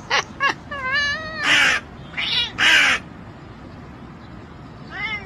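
A cat calling: two short yelps, a drawn-out wavering meow, then three loud, harsh, raspy cries in quick succession, and another meow starting near the end.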